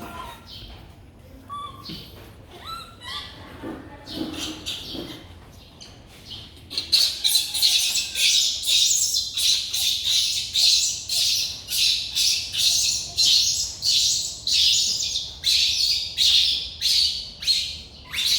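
Baby monkey giving rapid, repeated high-pitched squeals, about two a second, starting about seven seconds in, after a quieter stretch of scattered faint sounds.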